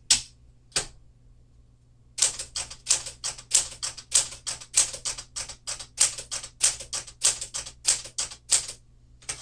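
1952 Smith-Corona Clipper manual typewriter being typed on: two single key strikes at the start, then a steady run of typebar strikes, about three to four a second, that stops shortly before the end.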